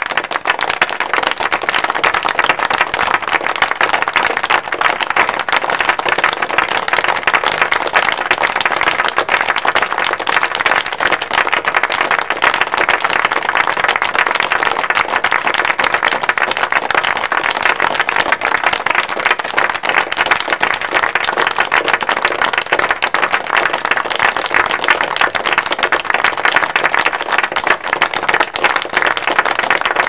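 A large crowd clapping, dense and steady throughout with no let-up.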